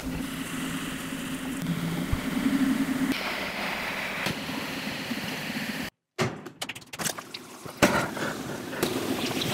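Electric potter's wheel running with a steady motor hum while a rib scrapes the spinning clay wall. About six seconds in, the sound cuts out briefly and comes back with hands working wet clay on the turning wheel and a few sharp knocks.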